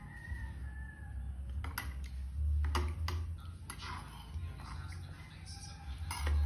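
A metal spoon clinking against a ceramic bowl while eating: several light, irregular clicks, bunched a couple of seconds in and again near the end, over a low rumble that comes and goes.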